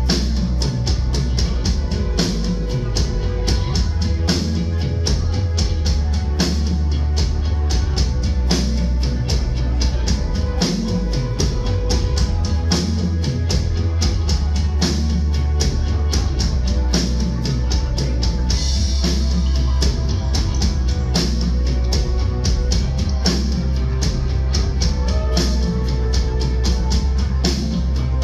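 Live rock band playing: a drum kit keeps a steady beat of quick, even cymbal strokes over a strong, steady bass line, with guitar.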